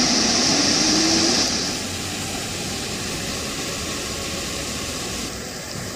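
A swollen, muddy flood torrent rushing: a steady wash of water noise, harsher and louder for the first couple of seconds, then an even, slightly softer rush.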